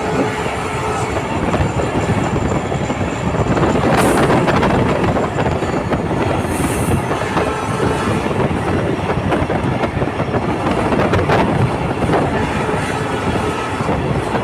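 Empty test train running at about 90 km/h over a rail bridge: a steady, loud rumble of wheels on the rails, with a few sharp clicks.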